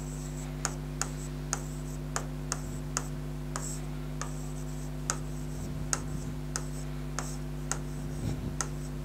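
Light, sharp clicks at uneven spacing, about one or two a second, over a steady low electrical hum.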